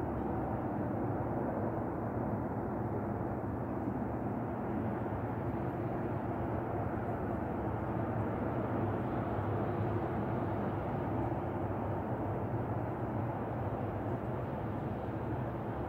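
Steady low outdoor rumble with a faint hum in it, even throughout, with no distinct bird calls standing out.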